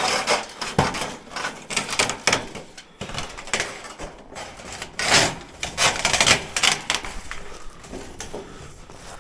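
Irregular knocks, clicks and scraping as roofing sheets and boards are handled and shifted during roof work, with louder rubbing bursts about five to six seconds in.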